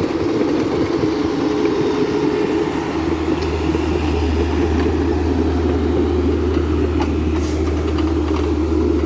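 Excavator diesel engine running steadily, with a deeper low hum setting in about three seconds in and a brief click near the end.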